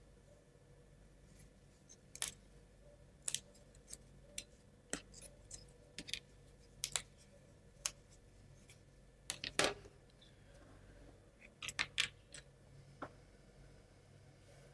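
Plywood model parts clicking and tapping together as they are handled and pressed onto their pins: scattered sharp clicks at irregular intervals, the loudest about nine and a half seconds in.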